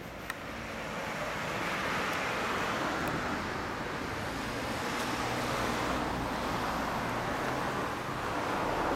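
Street traffic going by: a steady rush of tyre and engine noise that swells over the first couple of seconds and holds, with one light click near the start.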